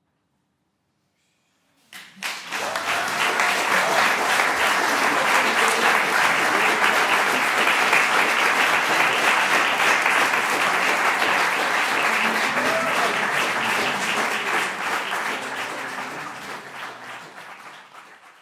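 Audience applauding. After about two seconds of silence the clapping breaks out suddenly, holds steady, then fades away near the end.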